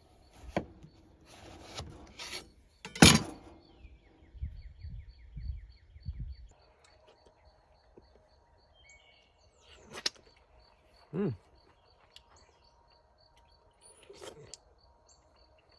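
Rustling and handling noises with a sharp knock about three seconds in, then quiet outdoor ambience with a faint, regular high chirp repeating about twice a second and a few short bird chirps.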